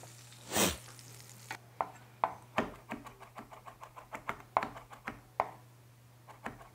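Chef's knife chopping herbs on a wooden cutting board: a run of sharp, irregular knocks, about two to three a second. A brief scrape comes about half a second in, before the chopping starts.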